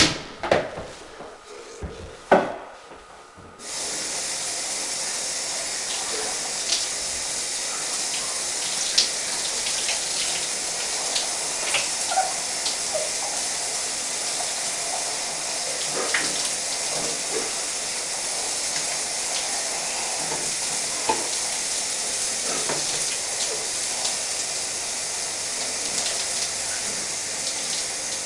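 A few loud thumps in the first seconds. Then, from about four seconds in, a shower running steadily, its spray hissing onto a person and the tiled stall, with small irregular splashes.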